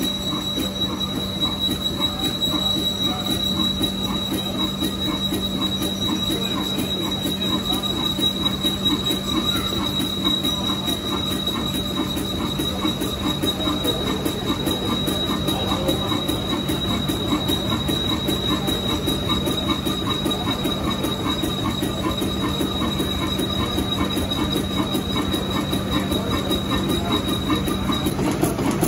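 Large stationary engine running steadily, with a rapid even beat and a steady high-pitched whine over it. The whine stops just before the end.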